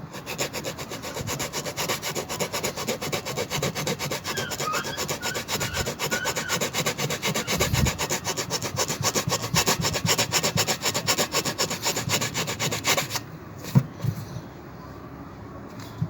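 Quick, even back-and-forth rasping strokes on a tyre during a puncture repair, stopping about thirteen seconds in, followed by a couple of short knocks.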